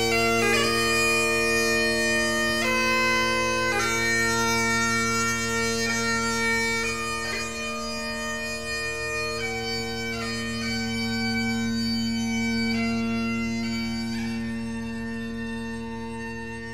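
Bagpipes playing a slow melody over their steady drones, the music fading a little toward the end.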